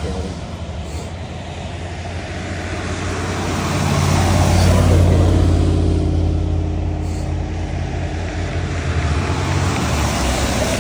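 A bus driving past, its engine growing louder to a peak about halfway through and then fading as it goes by.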